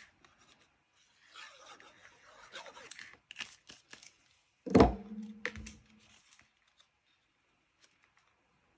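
Liquid glue being spread from a plastic glue bottle's applicator tip onto a cardstock circle: a soft scraping rustle with small clicks. About five seconds in comes one loud short knock or yelp with a brief low ringing tone after it.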